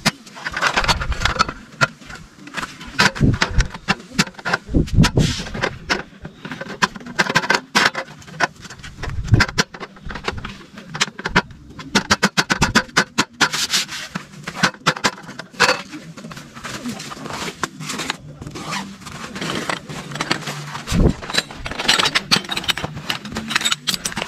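Irregular rustling, scraping and knocking of camping gear being handled and set up, with a quick run of clicks about halfway through.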